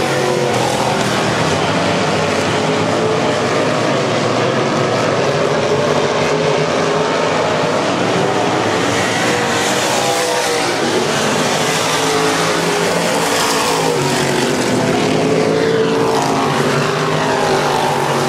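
Several dirt late model race cars' V8 engines running hard in a pack on a dirt oval. The engine pitch rises and falls as the cars go into and out of the turns.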